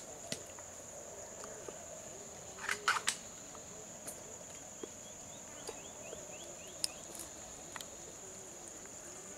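Steady high-pitched insect drone with scattered soft clicks and a quick cluster of sharp clicks and knocks about three seconds in, the loudest sounds here.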